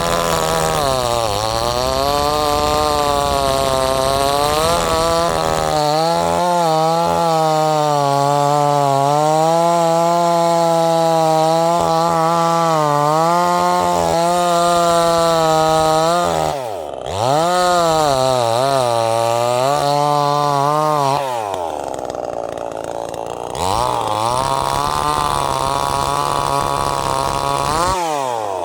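Zenoah two-stroke chainsaw cutting wood at high revs, its pitch sagging and recovering as the chain bites, running on regular gas without octane booster. Around 17 s it drops off sharply and revs back up, and from about 21 s it falls to a lower, quieter run for a couple of seconds before revving up again.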